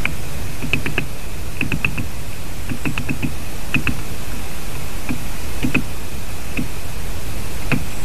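Great spotted woodpecker pecking at wood close to the microphone: irregular sharp taps, often in twos or threes, over a steady background hiss.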